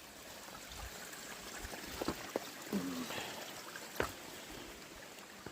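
A small stream trickling and flowing over rocks. A few faint clicks sound about two and four seconds in.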